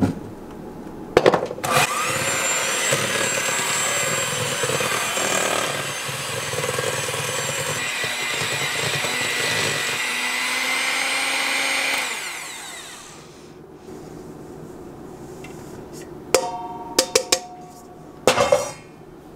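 Electric hand mixer running, its beaters whirring through the wet cake batter of eggs, sugar and oil. It switches on with a click about a second in and winds down after about ten seconds. Near the end come a few sharp metal clinks with a brief ring as a steel bowl of flour is tipped against the mixing bowl.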